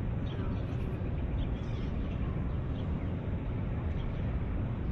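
Steady outdoor ambience: a low, even rumble with a few faint bird chirps.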